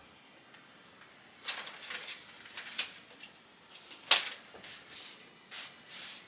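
A few short rustles and scrapes of objects being handled, spread across several seconds, the loudest about four seconds in.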